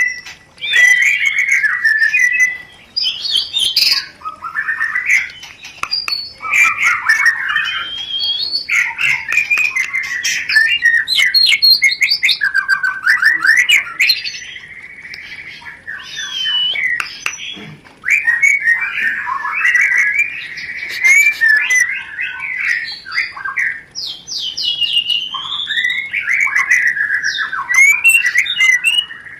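White-rumped shama (murai batu) song: fast, dense chattering phrases ('rencetan') mixed with clear whistled notes, going on with only brief pauses. It is the song of birds in breeding condition.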